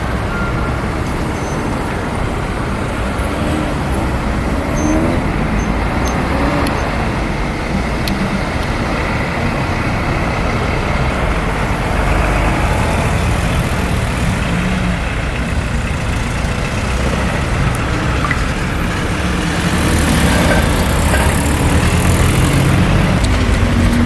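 Road traffic: cars and trucks running past on the street, a steady mix of engines and tyre noise, with a louder vehicle passing close near the end.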